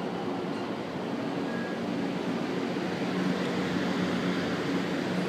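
Thunderbird limited express electric train rolling slowly along the platform: steady running noise with a motor hum, growing a little louder toward the end.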